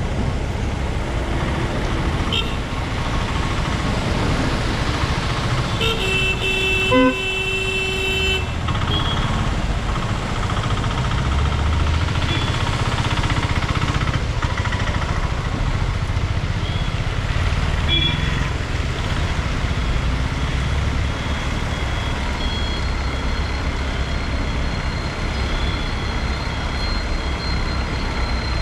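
Road traffic on a wet village road, with a steady hiss of rain and tyres and the low rumble of passing vehicles. A vehicle horn honks for about two seconds, about six seconds in, with its loudest blast in the middle.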